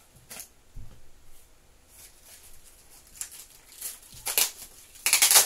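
Small cardboard box being cut and torn open by hand: scattered short rustles and scrapes of cardboard, then a louder rip near the end.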